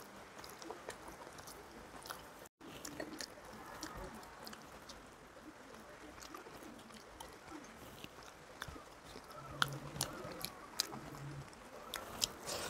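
Close-up chewing and wet mouth sounds of a person eating rice and curry by hand, with scattered small clicks and smacks and a few sharper ones. The sound cuts out completely for an instant about two and a half seconds in.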